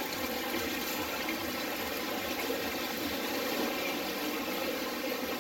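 Water pouring from hoses into live-seafood holding tanks, splashing and bubbling steadily.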